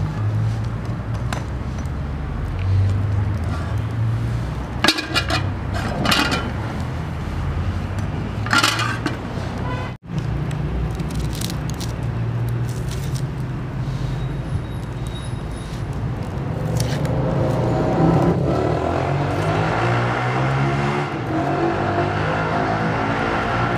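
Steady low outdoor rumble, with a few sharp clinks and scrapes about five to nine seconds in, as a metal pot and a plastic basket are handled and set down. A louder rushing sound swells in over the last few seconds.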